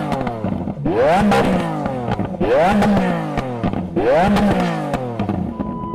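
Lamborghini Aventador S's V12 engine revved hard again and again, about every second and a half. Each rev climbs steeply in pitch and then falls away as the revs drop.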